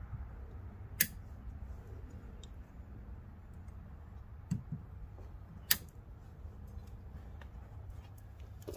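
Sharp plastic clicks and small knocks from a wiring harness and its connectors being handled. Two louder clicks come about a second in and again past the middle, with a few fainter ticks between, over a faint low hum.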